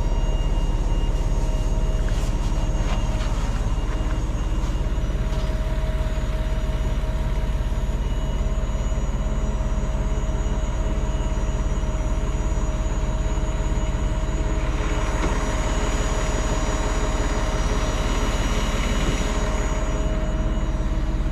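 Large diesel engine running steadily at constant speed, a low drone with several steady whines above it. A hiss joins it for several seconds about two-thirds of the way through.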